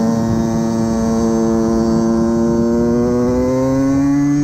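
Suzuki Valenti SM 50's two-stroke 50cc engine under way, held at a steady pitch, then climbing slightly near the end as the revs rise.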